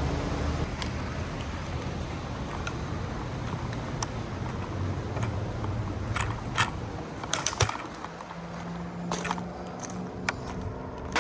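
Light metallic clinks and clatters of small metal parts, a cluster of sharp ones about six to eight seconds in, over a low rumble that fades out and gives way to a steady low hum near the end.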